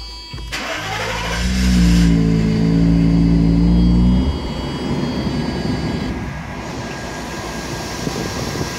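1991 Mercedes-Benz 500SL's 5.0-litre V8 firing up on a start attempt after hard starting, revving high for about three seconds and then dropping back to a steady idle.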